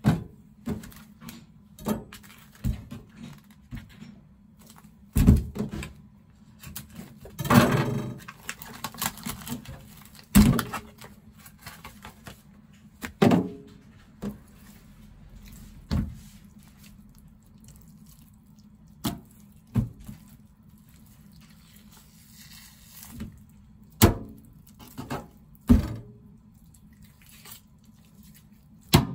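Irregular thunks and knocks as raw chicken breasts and a kitchen knife are handled on a plastic cutting board on a stainless-steel counter, with a longer stretch of rustling handling about eight seconds in.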